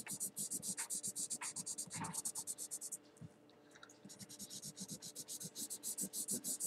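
Felt-tip marker scribbling rapidly back and forth on paper while colouring in, about eight strokes a second, with a pause of about a second midway before the strokes resume.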